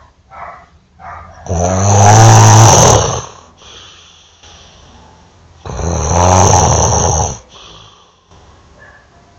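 Loud snoring: two long snores, each about a second and a half, about four seconds apart, with quieter breathing between them.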